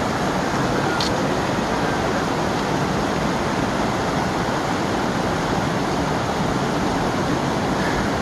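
Mountain creek water rushing steadily over rocks, a constant hiss and roar. A faint click about a second in.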